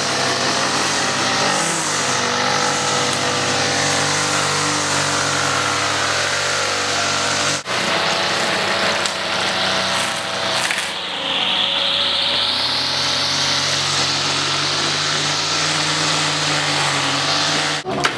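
Small petrol engine running steadily at a fairly constant speed, its tone drifting a little, with two sudden momentary cuts in the sound, one near the middle and one near the end.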